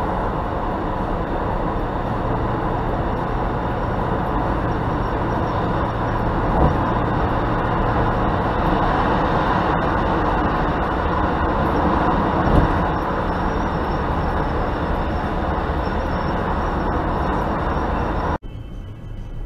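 Steady road and wind noise inside a car cruising at motorway speed, about 115–130 km/h, recorded by a dashcam. A couple of faint knocks come through, and near the end the noise cuts off abruptly to a much quieter stretch.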